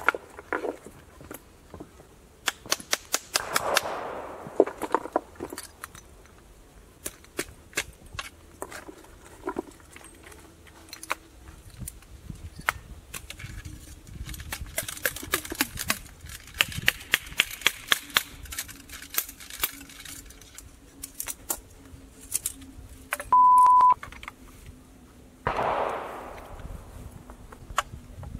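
Loading an original flintlock military rifle: a wooden mallet strikes the short starter to drive the patched, oversized ball into the muzzle, giving a long, fast run of sharp knocks through the middle, with further clicks and clanks from the ramrod and lock. A short steady beep sounds near the end.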